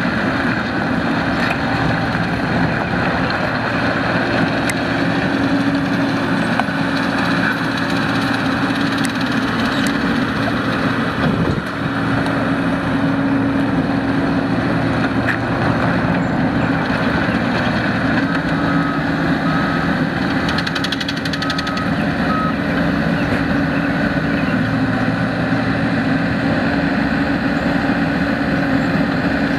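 Diesel engine of an ASV PT100 forestry tracked skid steer running steadily, its pitch shifting a little now and then. About two-thirds of the way through, a short run of high, evenly spaced beeps sounds.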